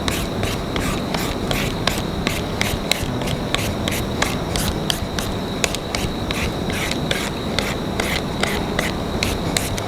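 Vegetable peeler scraping the skin off a firm green papaya in quick repeated strokes, about three a second.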